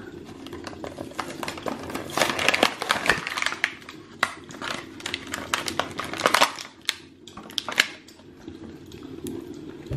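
Clear plastic blister pack crinkling and crackling in a run of quick cracks and snaps as it is pried off its cardboard backing card.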